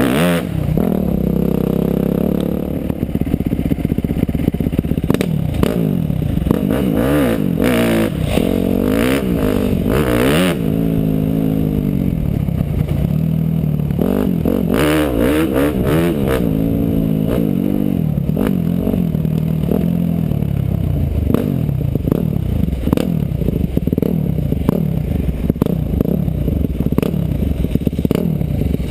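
Motorcycle engine being ridden, its pitch rising and falling over and over as the throttle opens and closes, with sharp knocks now and then.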